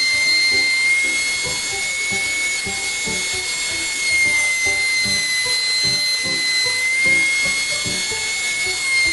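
Router in a router table running with a steady high whine as a round-over bit cuts the edges of a wooden mallet handle, under background music.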